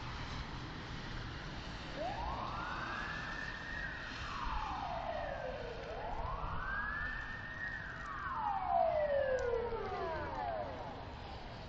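Emergency-vehicle siren in a slow wail, rising and falling twice, starting about two seconds in, over a low steady rumble of traffic and the car's own engine.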